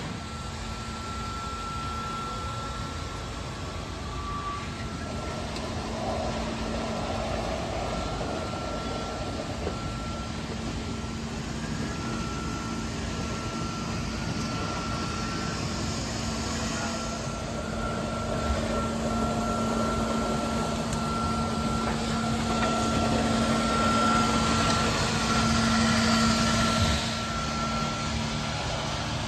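Kärcher KIRA B 200 robotic floor scrubber-dryer running, its brush and suction motors giving a steady hum with a high whine over a rushing noise. It grows louder partway through and eases off again near the end.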